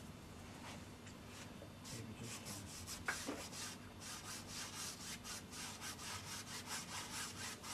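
A brush scrubbing oil paint onto a stretched canvas in quick back-and-forth strokes, about three a second, starting about two seconds in.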